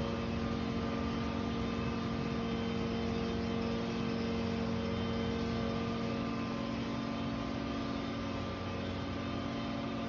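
Steady mechanical drone: a constant low hum with a few fainter higher tones, unchanging in pitch and level.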